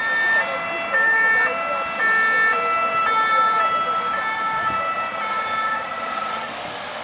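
Private ambulance siren sounding, its notes alternating about every half second, growing a little fainter near the end.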